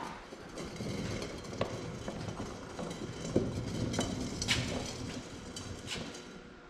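Heavy cast tractor front axle assembly being shifted by hand on a steel plate on a concrete floor: scraping and scattered metal knocks, with a few sharper clanks about halfway through.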